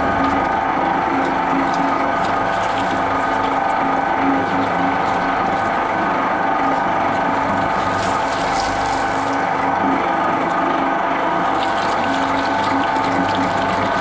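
Twin-shaft shredder running steadily with a constant mechanical hum and whine from its drive. Its rotating cutter discs chew into vegetables, a white radish and a pineapple crown, with light scattered crunching.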